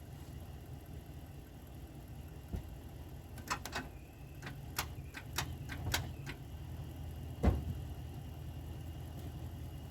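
An engine idling steadily. Near the middle come a quick series of sharp metallic clicks and knocks, and then a single loud thump.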